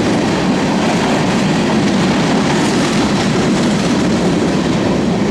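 Freight cars of a loaded sand train rolling past, a steady loud noise of steel wheels on the rails.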